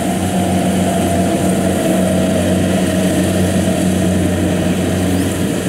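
Kubota DC70 rice combine harvester running steadily under load as it cuts and threshes lodged rice: a constant, loud engine hum with a faint whine from the machinery above it.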